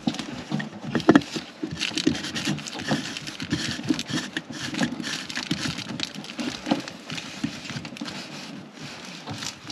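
Plastic lid of a raw-water strainer being put back and screwed down by hand, with irregular scrapes, clicks and knocks of plastic against plastic and metal.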